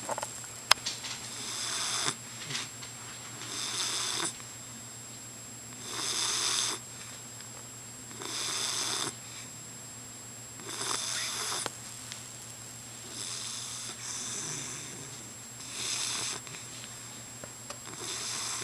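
English bulldog snoring in its sleep: about eight snores, one every two to two and a half seconds, each lasting under a second. A single sharp click sounds just under a second in.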